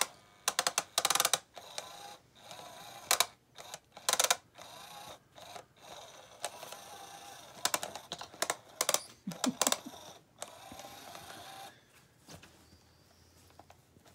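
Battery cat toy's motor whirring as it drives the wand around under its nylon cover, with repeated bursts of crinkly rustling and scratching as cats paw and claw at the fabric. The whirring stops about twelve seconds in.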